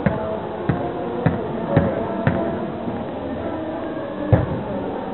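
A run of sharp thuds, five about half a second apart and then one more about four seconds in, over a continuous background murmur.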